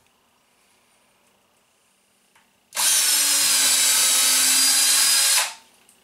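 A 20-volt cordless drill spins up and bores a pilot hole through the plastic flange of a roof vent fan into the camper roof. It runs at a steady speed for about three seconds, starting about two and a half seconds in, then stops abruptly.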